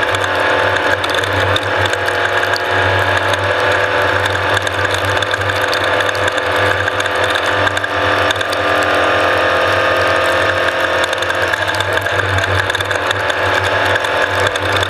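Off-road race vehicle running, a loud steady mechanical whine with a rattle over it and a low drone beneath, the pitch shifting slightly about eight seconds in.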